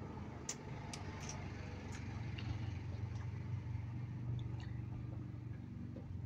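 Lip smacks and clicks from licking food off the fingers in the first two seconds, then sipping from a plastic cup, over a steady low engine-like rumble.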